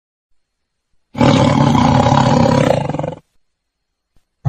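Logo intro sound effect: a loud, rough roar lasting about two seconds, starting about a second in and fading out, with a second roar starting at the very end.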